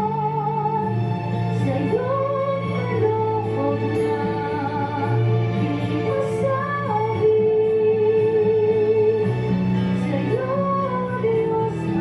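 Background music: a song with a woman's voice singing over steady bass and accompaniment.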